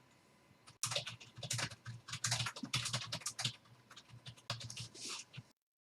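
Rapid, irregular light clicks and taps, starting about a second in and stopping shortly before the end.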